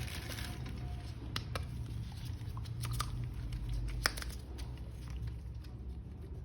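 Hands handling plastic toy pieces: a few sharp clicks and taps, heard over a low steady hum.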